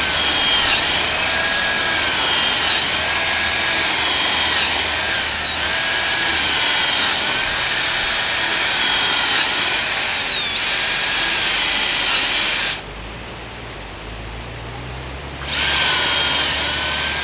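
Cordless drill with a half-inch spawn bit boring holes into a shiitake log, its motor whine dipping and recovering as the bit bites into the wood. It runs almost without pause, stops about 13 seconds in, and starts again for the next hole near the end.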